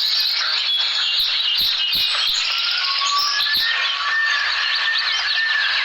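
Dense chorus of many small birds chirping and trilling, with a few clearer whistled notes coming in about halfway through.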